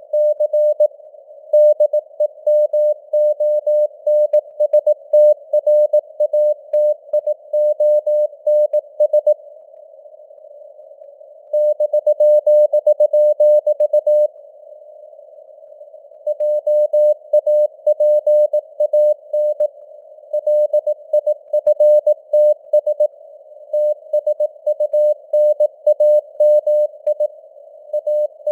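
Morse code (CW) at 18 words per minute: a single tone of about 600 Hz keyed on and off in dots and dashes over a steady narrow hiss of simulated radio noise. The sending pauses twice for about two seconds.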